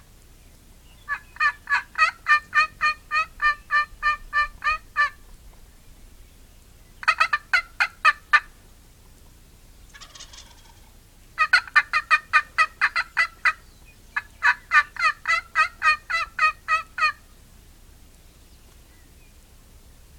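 Wild turkey jakes gobbling at close range: four loud, rapid rattling gobbles, the first and last lasting several seconds each.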